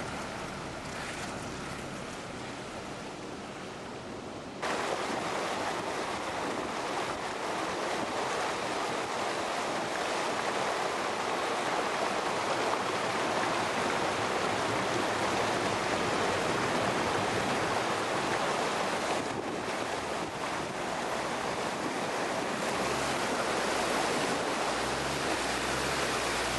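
Steady rushing and splashing of creek water. It jumps suddenly louder about five seconds in, and a low hum comes in near the end.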